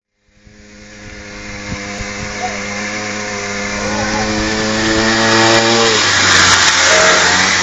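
Small engine of a homemade motor-cultivator vehicle running at a steady speed, fading in and growing louder as it comes closer. About six seconds in, the steady tone breaks up into a rougher, louder noise.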